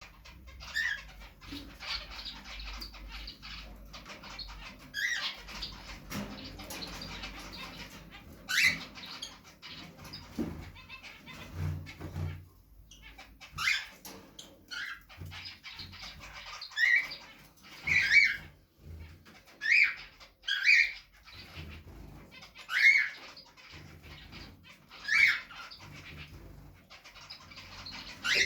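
Pet finches giving short, sharp calls, one every few seconds and more regularly after about halfway.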